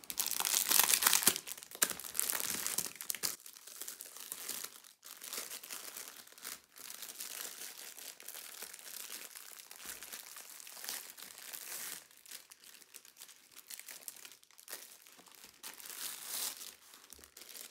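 Clear plastic packaging crinkling as it is handled and slid off a rolled canvas. It is loudest in the first second or so, then comes and goes more softly.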